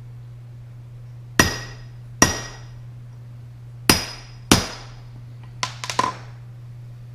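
Hammer striking transfer punches to mark hole locations on a metal vise-jaw blank: four sharp, ringing blows in two pairs, followed by a few light metallic clinks.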